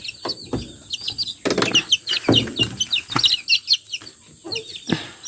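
Chicks peeping: many rapid, high-pitched, falling chirps overlapping one another, with a few short knocks among them.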